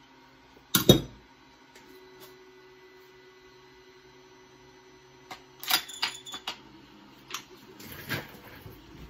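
Metal clacks and clicks of a Browning Gold 10 gauge shotgun being broken down by hand: one sharp knock about a second in, then a cluster of clicks and rattles in the second half. A 3D printer hums faintly and steadily underneath.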